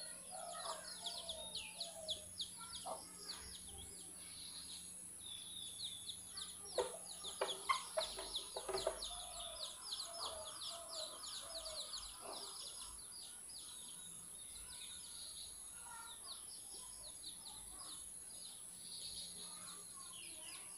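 Faint birdsong of rapid, repeated high chirps, with chickens clucking, running steadily under a low hum.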